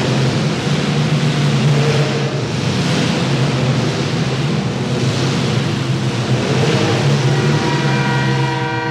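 Compact demolition derby cars' engines running and revving together in a loud, continuous din. A horn starts sounding near the end.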